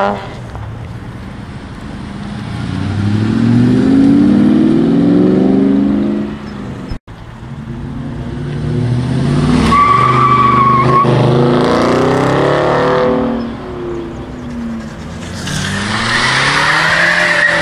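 Cars accelerating hard past one after another, engines revving up with rising pitch, with a short tyre squeal about ten seconds in and another near the end.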